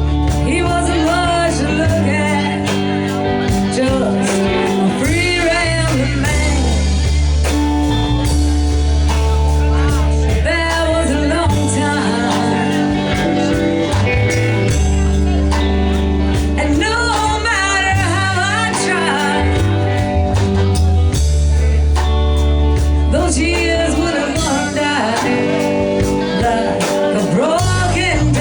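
Live blues-rock band playing: a singer over electric guitar, bass and drums, with a steady beat and held bass notes.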